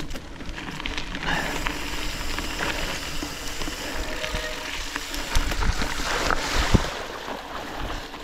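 Trek Supercaliber mountain bike riding over a rough, muddy forest trail: a steady rush of tyre and wind noise with scattered knocks from the bike, the sharpest knocks in the second half.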